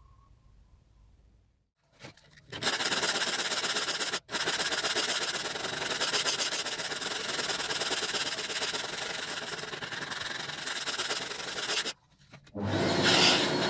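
Sanding of a hardened super glue and noodle repair on a hard plastic part: steady abrasive rubbing that starts a couple of seconds in, breaks off for an instant, runs on for about nine seconds, stops, and starts again near the end.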